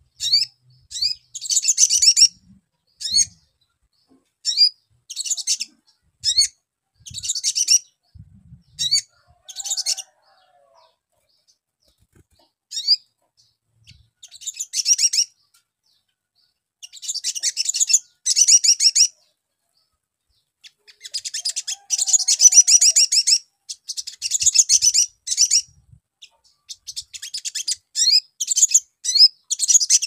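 Male olive-backed sunbird singing: rapid, high-pitched chirps and twittering trills in repeated bursts, with a lull of a few seconds near the middle before longer bouts resume.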